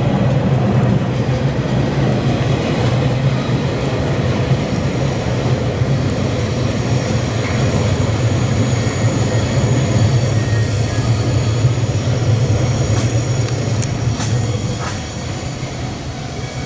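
Freight train of empty Taki 1000 tank wagons hauled by a DE11 diesel locomotive, rolling past with a steady loud running noise that drops off a little near the end.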